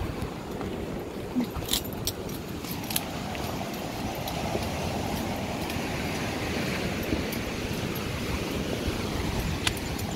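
Wind buffeting the microphone over a rushing hiss that swells and fades in the middle, with a few light metallic clinks, twice about two seconds in and once near the end.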